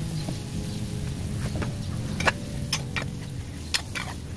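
A metal spatula stirring eggs in a wok, with several sharp clicks and knocks of the spatula against the pan in the second half.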